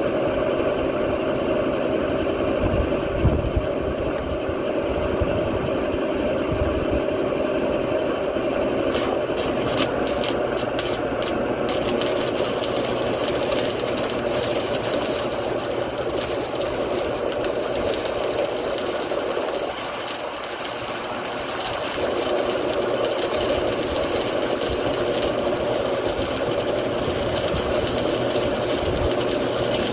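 Lincoln Idealarc 250 transformer welder humming steadily. About nine seconds in a welding arc is struck with a run of sharp crackles, then settles into a steady hiss from about twelve seconds on, with the welder under heavy load and drawing about 50 amps from the supply.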